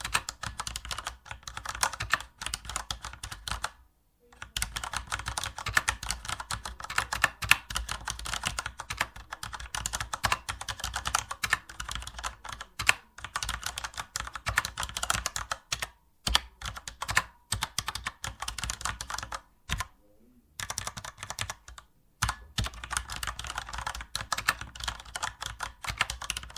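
Rapid, continuous typing on a standard computer keyboard, keys clattering in quick runs, with brief pauses about four seconds in and again around sixteen, twenty and twenty-two seconds in.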